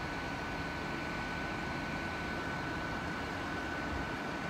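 Diesel trains running steadily at a station: a low engine drone with a constant high whine, holding level throughout.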